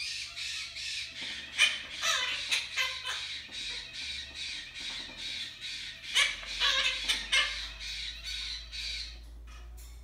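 Blue quaker parrot (monk parakeet) squawking: a rapid run of short, harsh calls, several a second, that stops about nine seconds in.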